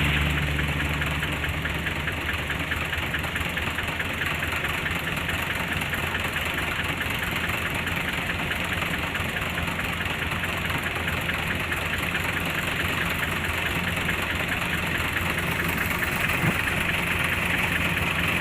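Kubota rice combine harvester's diesel engine running steadily with an even hum.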